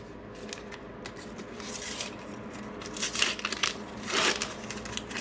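Paper sticker packs and stickers being handled: a few short rustling, crinkling and tearing sounds, the loudest about three and four seconds in.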